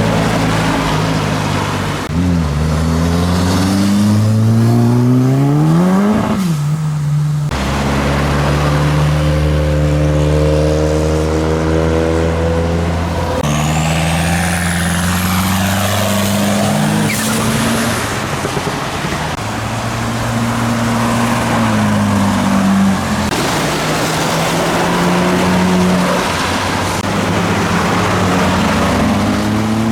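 Modified cars' engines running as cars come in. Early on one revs up in a rising note, and after a short break the engines hold a steady note, with a high rising whistle about halfway through.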